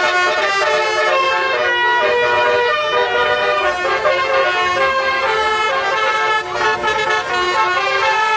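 Telolet horns, multi-tone musical vehicle horns, sounding a continuous run of changing notes, several tones at once.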